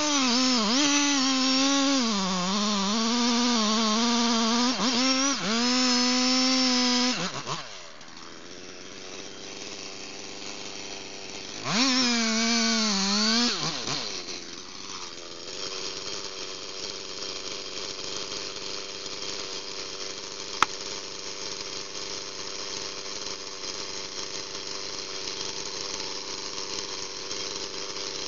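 Chainsaw cutting into a big tree trunk at full throttle, its pitch dipping and recovering as the bar bites, for about seven seconds. The revs drop, it is revved up again briefly near the middle, then it settles to a steady idle, with one sharp click near the end.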